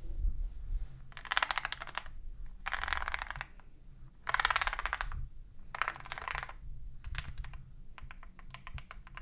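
Typing on a custom Akko MOD007 V3 mechanical keyboard with lubed switches, XDA-profile keycaps and a polycarbonate plate. Four quick runs of keystrokes, each about a second long, with short pauses between them, then slower scattered key presses near the end.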